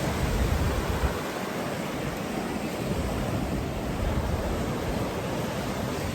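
Ocean surf washing in steadily at the shoreline, a continuous rushing wash, with a low, uneven rumble of wind on the microphone.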